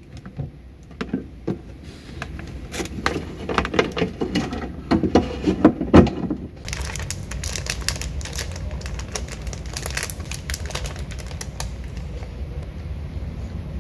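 Irregular taps and knocks from things handled on a table, the loudest near six seconds in, then a clear plastic snack bag crinkling in a quick run of crisp crackles as it is handled.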